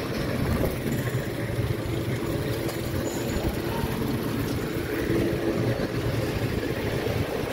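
Steady low rumble of wind and ride machinery on board a Flying Scooters ride as its tub swings around on its cables.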